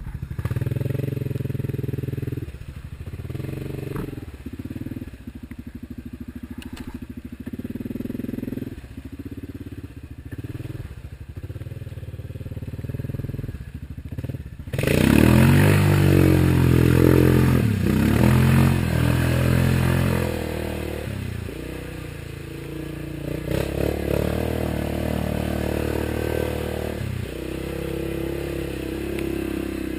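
Yamaha Grizzly ATV engine revving up and down as it pushes through deep muddy water. About halfway through it is given much more throttle, with loud splashing and spray, then it eases off again.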